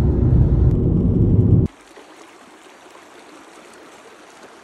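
Steady low rumble of a car driving, heard inside the cabin, that cuts off suddenly about a second and a half in. After the cut comes a faint, even rush of a shallow river running over stones.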